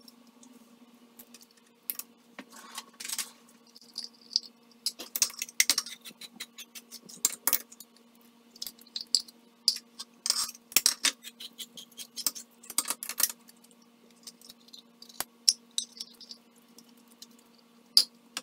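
A utensil scraping and tapping inside small metal cans as diced green chilies are emptied into a slow cooker: irregular clinks and scrapes in clusters, over a faint steady hum.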